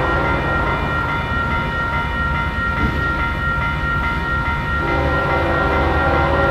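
Grade-crossing warning bell ringing over the low rumble of an approaching train. About five seconds in, a locomotive horn starts sounding.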